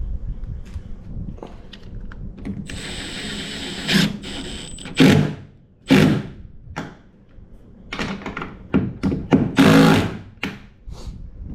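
Power drill running in short bursts, with one longer steady run about a third of the way in, while the transom bolts are being put in.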